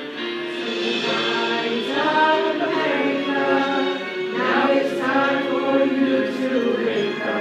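A small group of voices singing a song together, a cappella, with notes held and gliding from one to the next.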